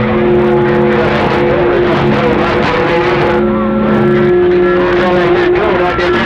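Signals received on 27.025 MHz (CB channel 6) through an HF transceiver's speaker: several steady tones held at once over a dense hiss. A lower tone drops out about four seconds in as higher ones come in.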